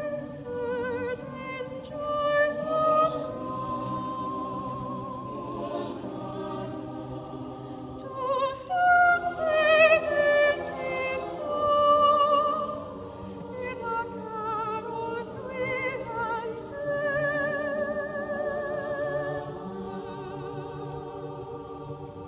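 Solo soprano singing a slow carol melody with wide vibrato, over a choir holding soft sustained chords beneath.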